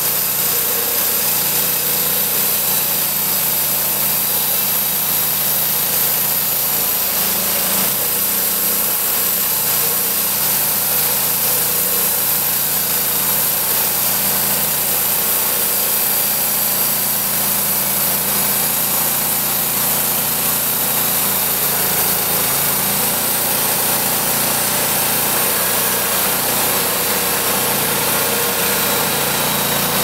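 Wood-Mizer LT10 portable band sawmill running steadily, its gasoline engine driving the band blade through a pine cant as the saw head is pushed along by hand.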